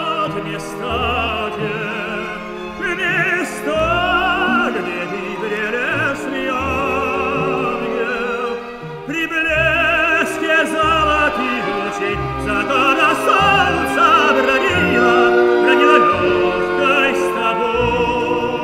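Operatic tenor singing an aria with orchestra, the voice carrying a marked vibrato over sustained orchestral chords.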